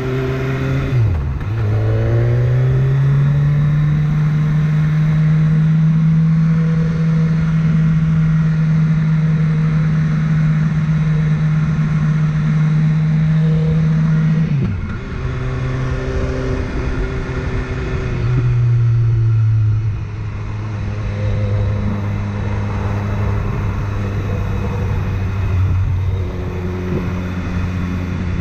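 BMW S1000R inline-four motorcycle engine running at steady cruising revs under a steady rush of wind. The revs dip briefly about a second in, then hold steady. They fall sharply about halfway through, drop again a few seconds later, and hold steady at the lower pitch.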